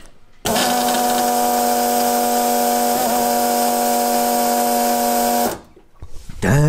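AEM 50-1005 inline high-pressure EFI fuel pump (400 lph) running: a loud, steady electric whine with a hum under it, switching on about half a second in and cutting off suddenly about five seconds later.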